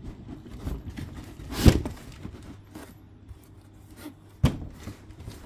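Cardboard toy box being handled while a packed figure is worked out of it: cardboard rubbing and scraping, with two sharp knocks, the louder about a second and a half in and another near the end.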